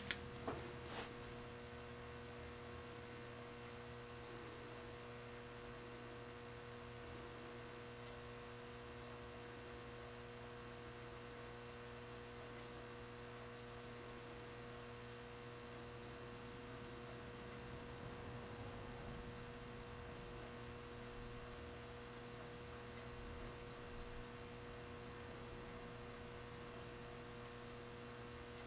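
Faint, steady electrical hum with a couple of clicks right at the start.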